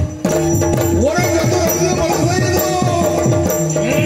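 Yakshagana accompaniment music: a steady held drone under fast, continuous drumming whose strokes swoop up and down in pitch.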